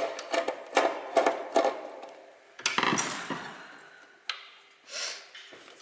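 Hand tools and metal parts clicking and knocking as covers and components are taken off a piece of high-voltage RF equipment: a quick run of sharp knocks, then a louder clatter with some ringing about three seconds in and a single click a little later.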